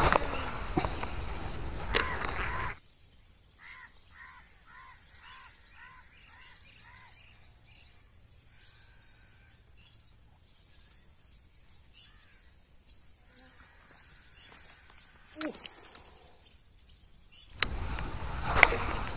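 Loud rustling of clothing against the camera for the first few seconds and again near the end, with a quieter stretch between in which a bird gives a quick series of about eight short calls. A faint steady high-pitched whine runs under the quiet part, and there is a sharp click about fifteen seconds in.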